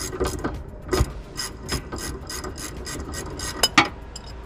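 Ratcheting combination wrench clicking as it is swung back and forth on a sway bar end link nut, about three clicks a second, with two louder clicks just before the clicking stops near the end.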